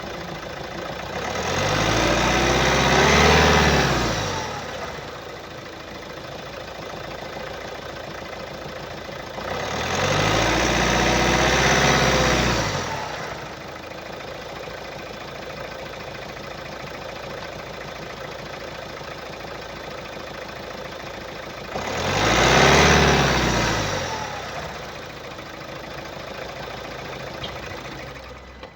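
2015 Hyundai i30 1.6-litre D4FB diesel engine idling, revved up and let fall back three times, a few seconds each. The seller puts the engine's unusual noise down to a clogged diesel particulate filter.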